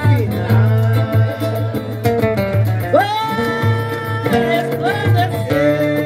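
Live samba band playing: guitars and a low, pulsing bass beat under a woman's voice singing long, held notes that bend in pitch.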